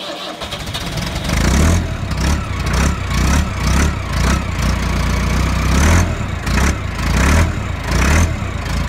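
Massey Ferguson 390 tractor's diesel engine running just after a cold start, its first start in a month. It picks up over the first second or so, then runs with an uneven pulsing beat, swelling louder about once or twice a second.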